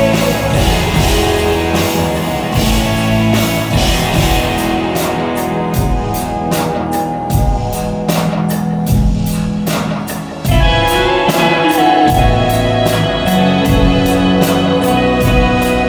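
Live rock band playing: electric guitar, bass guitar and drum kit. A steady drum pulse runs through the middle, and about ten and a half seconds in the band comes in suddenly fuller and louder.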